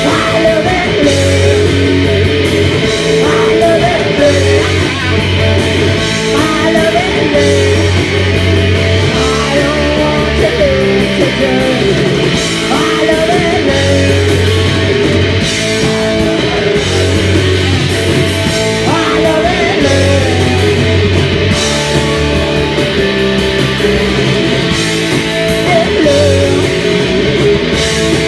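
Live rock band playing loud: distorted electric guitar, bass and drums, with a singer.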